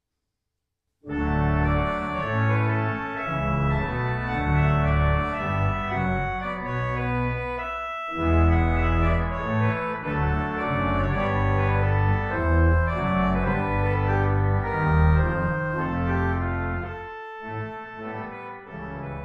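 Church organ playing a closing voluntary after the benediction: sustained chords over a deep bass line, starting about a second in, with a brief break about eight seconds in.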